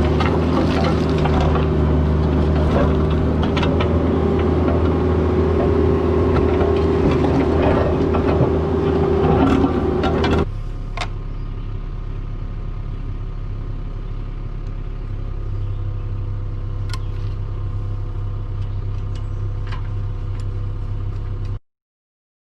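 CAT 304 mini excavator's diesel engine running steadily, with scattered clanks. About halfway through it cuts abruptly to a quieter, lower engine hum with a few ticks, and near the end the sound stops dead.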